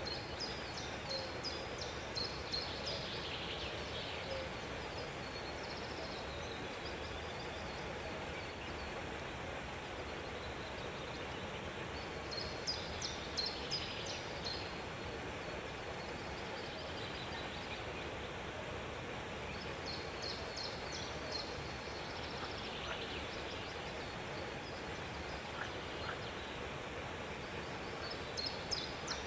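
Birds chirping in four short bursts of rapid high notes over a steady background hiss.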